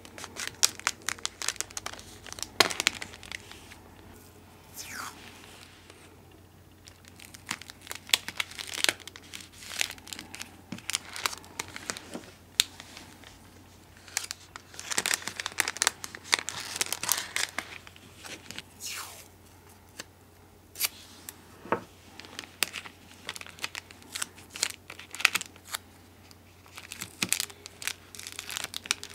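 Clear plastic cookie bags crinkling and crackling in irregular bursts as they are handled, folded shut and sealed, with washi tape being torn and pressed down.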